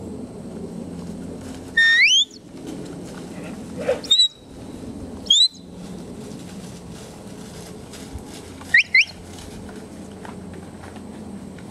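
Herding handler's short rising whistles, four sharp blasts a few seconds apart, given as commands to a Border Collie working cattle, over a steady low rumble.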